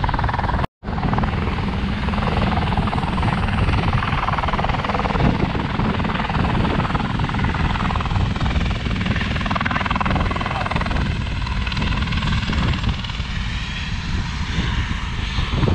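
Helicopter running steadily, a dense low rotor and engine noise that drops out for an instant about a second in.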